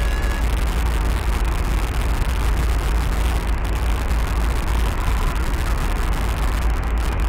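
Steady deep rumble under an even hiss, unchanging in level, from a sound-art piece made of continuous noise.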